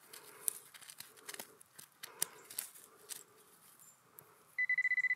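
Dry grass stalks crackling as a hand picks through them. Near the end, a metal detector gives a fast, high-pitched beeping that signals metal close by.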